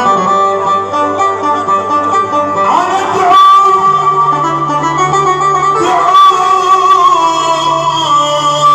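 Live Arabic band music in an instrumental passage: plucked strings and a held, gliding melody line over a steady low note that enters about four seconds in.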